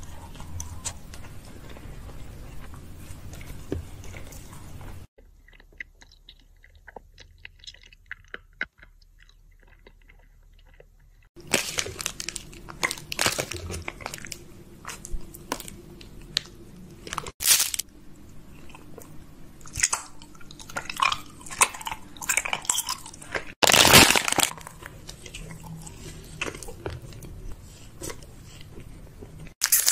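Close-miked ASMR eating: crisp food bitten and chewed into the microphone, with many loud, sharp crunches. A quiet stretch of small mouth clicks comes before the loud crunching starts, and two crunches stand out as the loudest.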